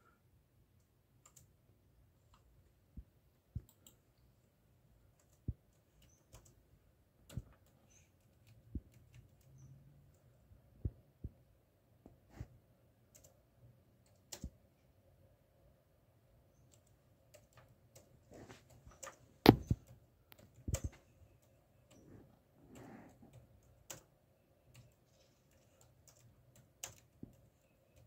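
Scattered, irregular clicks and taps, a few every couple of seconds, with the loudest pair of sharp knocks a little over two-thirds of the way through.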